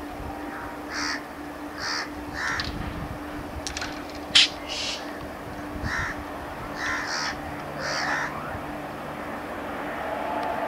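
Crows cawing repeatedly, one short call about every second, over a steady low hum. A single sharp click about four seconds in is the loudest sound, and near the end the steady hum of the approaching electric locomotive begins to rise.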